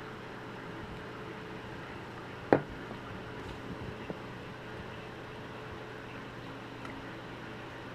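A single sharp knock about two and a half seconds in, as the metal aerosol can of whipped cream is set down on the table, with a faint tick a little later, over a steady low room hum.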